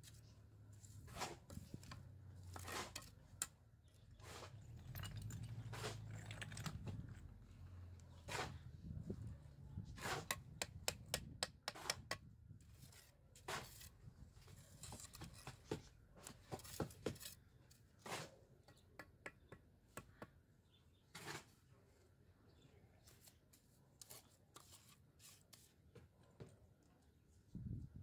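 Steel mason's trowel scraping and tapping on wet cement mortar and stone, a string of irregular sharp clicks and scrapes, busiest in the middle.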